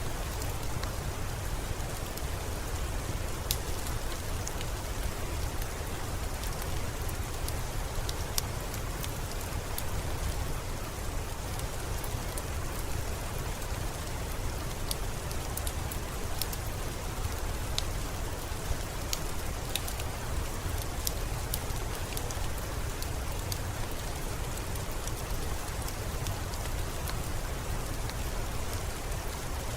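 Steady rain with a low rumble underneath, and scattered sharp crackles of a wood fire every few seconds.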